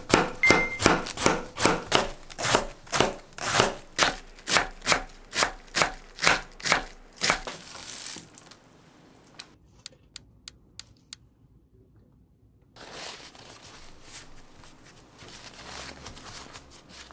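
Knife shredding a cabbage on a wooden cutting board, an even run of sharp chops about three a second that stops after about seven and a half seconds. Later, a soft rustling of a paper towel being pressed and handled.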